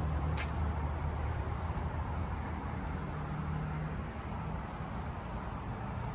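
A steady low mechanical rumble, like a vehicle engine running, that swells and fades over a background hiss, with one sharp click about half a second in.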